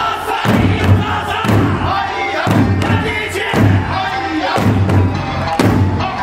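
Eisa drumming: a large Okinawan barrel drum struck in a heavy beat about once a second, together with small hand drums, over a sung folk-song accompaniment with shouted calls from the dancers.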